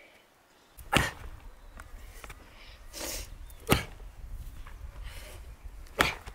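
Axe blade chopping into a dry log on the ground: three sharp, hard strikes spaced about two and a half seconds apart.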